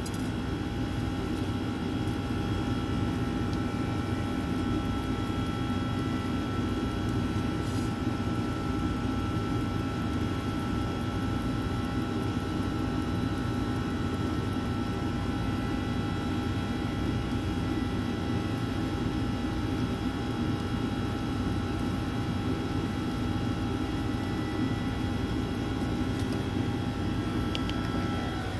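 Steady machinery drone of a bakery workroom's equipment, with a few constant whining tones over a low rumble and no change throughout.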